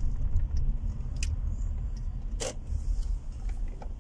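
Low steady rumble of a car being driven, heard from inside the cabin, with a couple of short clicks about one and two and a half seconds in.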